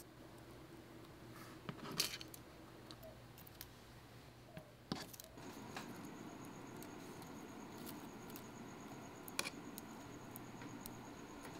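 Light clicks and taps of thin wooden sticks being handled and set in place on a small model cabin, a handful of separate clicks with the sharpest about two seconds in, over a faint steady hum.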